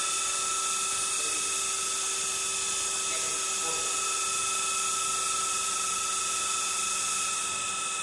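Hydraulic power pack's electric motor and pump whining steadily as the hydraulic cylinders tilt the crucible furnace back upright, easing slightly near the end.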